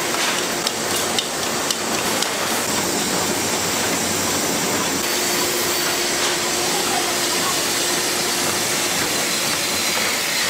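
Ice cream bar production-line machinery, a conveyor and a flow-wrapping machine, running with a steady hiss and hum. A few light clicks come in the first couple of seconds.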